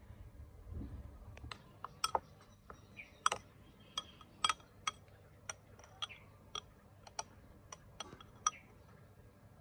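Metal spoon clinking against a ceramic bowl while stirring a wet mixture of minced snail meat and green chilies: sharp clinks, about two a second.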